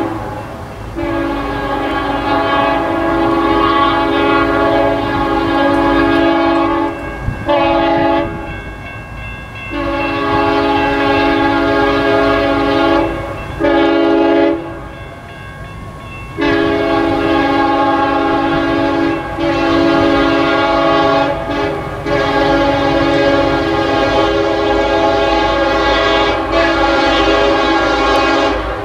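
Locomotive air horn, a fouled Nathan K5HL on a CSX SD50-3, sounding a crossing sequence as the train approaches. It gives long and short blasts with brief gaps, ending in a long held blast.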